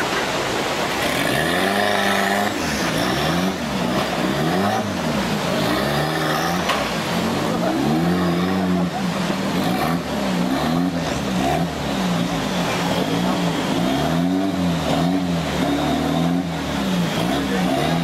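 Off-road 4x4 competition vehicle's engine revving up and down again and again as it crawls through a rocky river, with water churning around the wheels.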